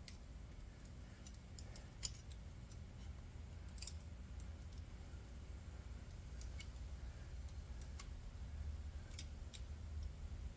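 Faint, scattered metallic clicks as the friction and steel clutch plates are worked out of a Harley-Davidson clutch basket by hand, over a low steady hum.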